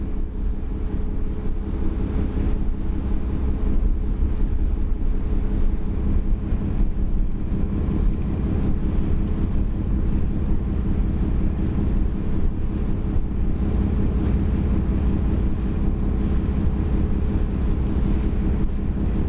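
Ferry under way: a steady engine drone with a deep rumble and constant low hum, with wind buffeting the microphone and water rushing past the hull.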